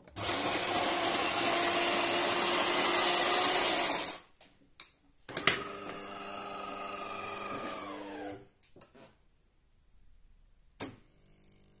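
De'Longhi ESAM 2200 bean-to-cup coffee machine's burr grinder milling beans for about four seconds. After a few clicks, a motor hums for about three seconds, its pitch falling as it slows under load near the end, and there is one more sharp click near the end.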